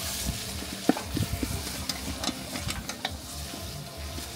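Food sizzling in a cooking pot over a wood fire, with a few sharp clicks and scrapes as it is stirred, the paprika and garlic powder just stirred in.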